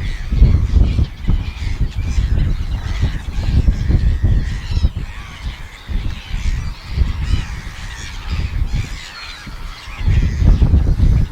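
Seagulls calling repeatedly in short, wavering cries, over a loud, gusty low rumble of wind on the microphone that eases off in the middle.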